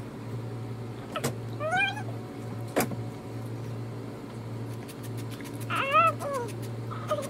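A toddler fussing with two short whiny cries that rise and fall in pitch, about two seconds in and again near the end, with a couple of sharp clicks in between over a steady low hum.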